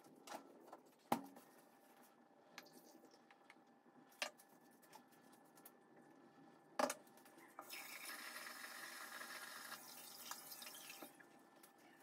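Quiet kitchen sounds: a few sharp knocks or clinks, then a water tap runs for about three seconds and shuts off.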